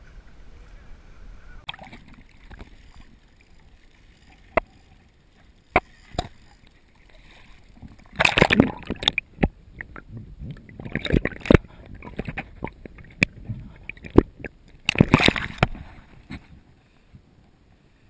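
Water splashing and sloshing around a kayak in three loud bursts, with a few sharp knocks in between, while a hooked sailfish is fought from the kayak.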